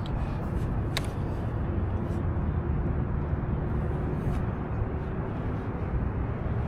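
Steady low rumbling outdoor noise with a faint steady hum, and one sharp click about a second in.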